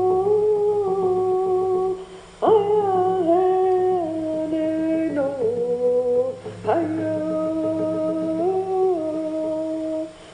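Two dogs howling in long drawn-out notes, a new howl starting about every four seconds; each swoops up at the start, then holds with small steps in pitch. A low steady hum runs underneath.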